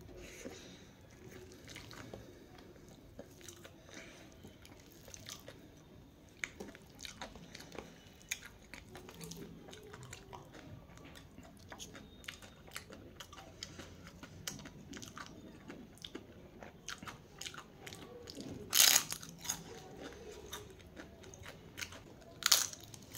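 A person chewing and biting food up close, with many small crunchy clicks. Two louder sharp noises come about three-quarters of the way through and near the end.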